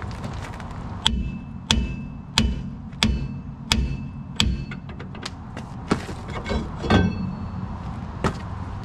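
A hammer strikes a worn, stuck brake rotor on a Dodge Ram 1500 hub six times, about two-thirds of a second apart, each blow ringing metallically, to knock the rotor loose. Lighter knocks and clanks follow as the rotor comes free.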